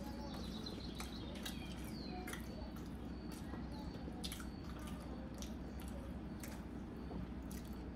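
Faint eating sounds: scattered soft clicks and wet squishes of people chewing momos and handling plates, over a steady low hum.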